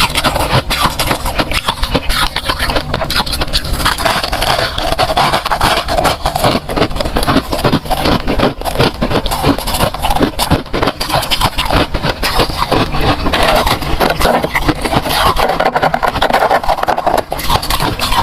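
Freezer frost being crunched without a break: a dense run of quick crackles and scrapes.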